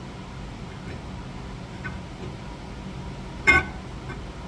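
A brake part being fitted back onto a car's rear hub: a few faint metal ticks, then one sharp metallic clank with a short ring about three and a half seconds in.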